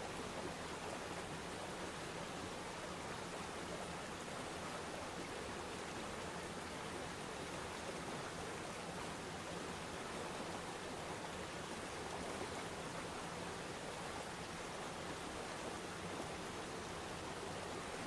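Waterfall and river rapids: water pouring and rushing over rocks in a steady, even rush that does not change.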